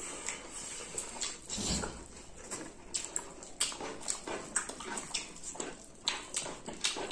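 Two people chewing with wet lip-smacking as they eat spicy chicken and rice by hand, in short irregular smacks several times a second.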